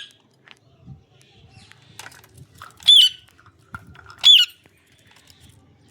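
Green parrot giving two short, shrill squawks about a second and a half apart, near the middle.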